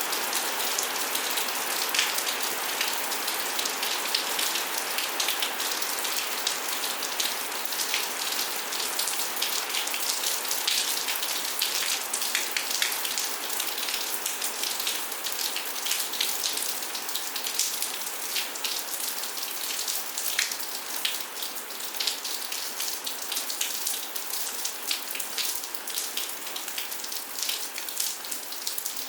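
Steady rain falling, with many single drops striking close by in quick, irregular succession.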